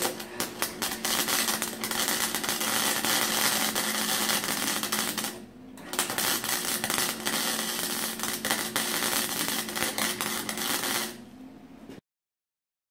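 Electric arc welding of angle iron: a continuous fast crackle and sizzle of the welding arc over a steady hum, in two long beads with a short break about five and a half seconds in, ending about eleven seconds in.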